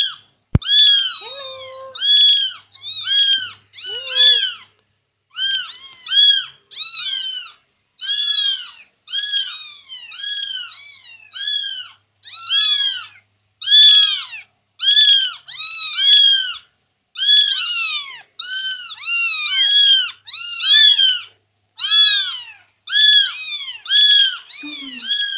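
A Persian kitten mewing over and over in short, high-pitched calls, often in quick pairs.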